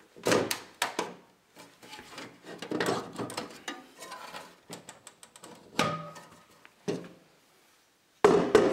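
The clear plastic cover of an Itron Centron C1S electricity meter being twisted off its watertight seal by hand: sharp plastic knocks and clicks with rubbing and scraping in between. A louder knock comes near the end.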